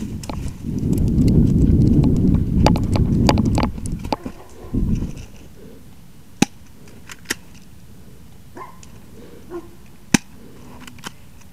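Rustling, thudding footfalls and low buffeting on the microphone while running through dry leaves and undergrowth, for about four seconds. After that come a few sharp, single cracks a second or more apart, typical of an airsoft pistol firing.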